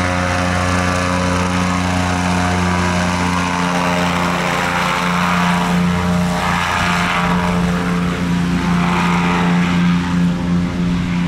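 Airboat's engine and air propeller running steadily under power, the hull driving across grass.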